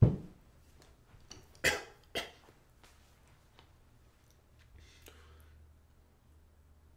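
A man coughing and clearing his throat, throat sore from shouting in a strained, angry voice. It opens with a sudden sharp sound, then two short coughs about two seconds in, and a soft breathy sound near the middle.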